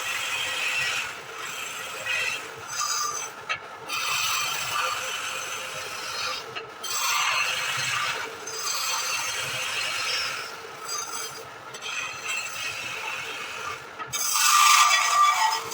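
Wood being turned on a lathe: a tool held against the spinning wood in passes a second or two long with short breaks between, loudest near the end.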